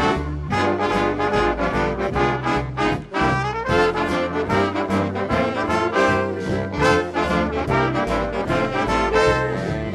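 Big band swing music with a brass section playing over a steady beat.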